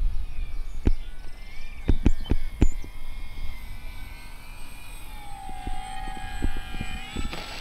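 Motor and propeller of an RC F4U Corsair warbird on landing approach at about half throttle: a steady whine that drops in pitch about five seconds in as the throttle comes back, then a rush of noise near the end as it touches down on the runway. Several sharp thumps in the first three seconds over a low rumble of wind on the microphone.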